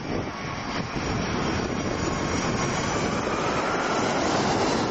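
Boeing 757 twin jet engines running during a low pass, a dense rushing noise that slowly grows louder, with a faint whine rising gently in pitch.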